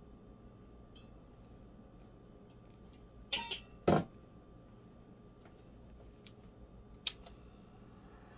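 Things being handled and set down on a stainless steel counter: a short clatter about three seconds in, a sharp knock just before four seconds, and a single click near seven seconds, over a low steady hum.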